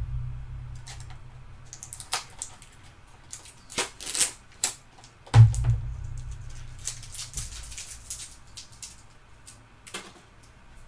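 Small plastic containers and deli cups being handled and set down in a plastic tub: irregular light clicks and taps of plastic on plastic, a few sharper knocks among them, over a low hum.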